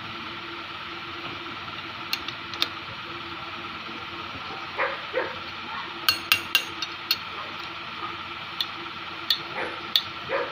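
Sharp metallic clicks and taps of hand tools and valve parts on an aluminium engine cylinder head, a quick cluster of them a little past the middle, over a steady background hum.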